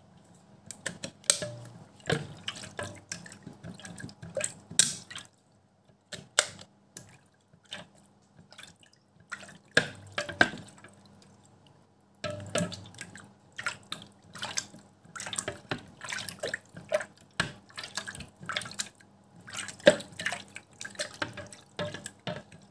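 A makeup sponge being plunged and squeezed in soapy water in a StylPro Squeeze cleaning jug. It gives irregular splashing and dripping with sharp plastic clicks from the plunger basket, with two brief pauses.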